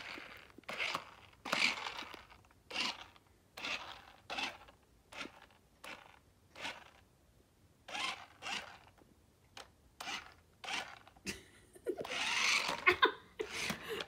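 Sharper Image Thunder Tumbler remote-control stunt car's electric motors whirring in short spurts, roughly one a second, as the car is driven and spun on carpet, with a longer run near the end.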